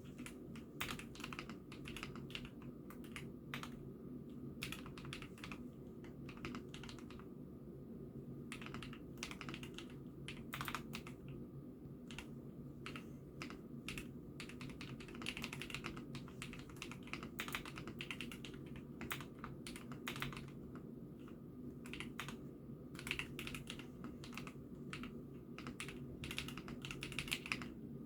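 IKKI68 Aurora hot-swap mechanical keyboard being typed on: irregular runs of key presses with a few brief pauses, a soft pitter-patter. A steady low hum sits underneath.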